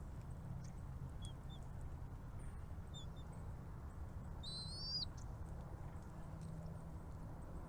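Small bird chirps at a nest: a few short faint peeps, then one louder rising call about four and a half seconds in, over a steady low rumble.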